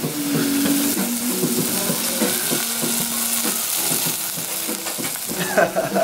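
Small meat patties sizzling steadily as they fry in a nonstick pan.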